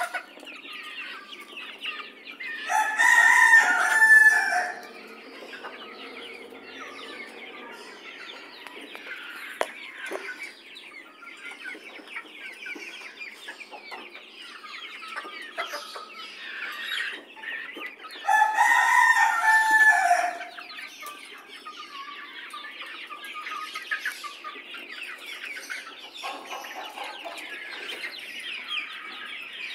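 A flock of chickens clucking throughout, with a rooster crowing twice: once about three seconds in and again about eighteen seconds in, each crow lasting about two seconds and louder than the clucking.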